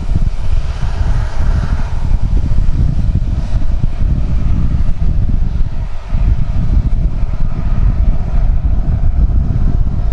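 Distant CFM56 turbofans of Boeing KC-135R Stratotankers taxiing, a steady rumble with wind buffeting the microphone. The sound dips briefly about six seconds in.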